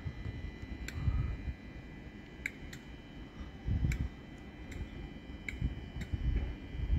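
Sharp ticks at irregular intervals, roughly one a second, over a steady high-pitched whine and a low rumble that swells now and then.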